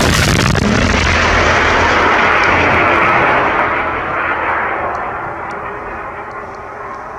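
Anti-tank guided missile in flight right after launch: a loud, steady rushing hiss of its rocket motor that starts to fade after about three and a half seconds and keeps trailing off.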